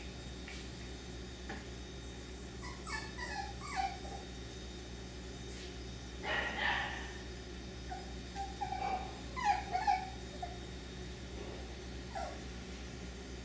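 Cockapoo puppies giving short whimpers and yips, several falling in pitch, in scattered bunches.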